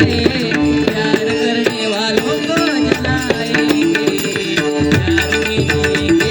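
Devotional bhajan music without sung words: tabla keeps a steady rhythm under a repeating instrumental figure and a gliding melody line.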